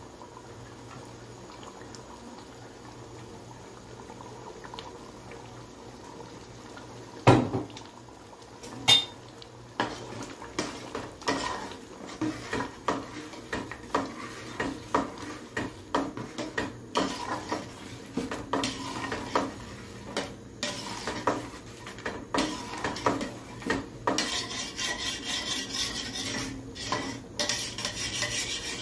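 A metal slotted spatula stirring a thick mutton and lentil stew in a large aluminium pot, clinking and scraping against the pot. It is quiet for the first several seconds, then comes a loud clank, followed by a run of repeated scrapes and knocks that grows busier near the end.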